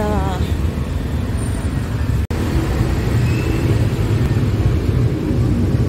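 Road traffic: motorcycles, motorized tricycles and cars passing on a busy street, a steady engine rumble and tyre noise. The sound cuts out for an instant about two seconds in.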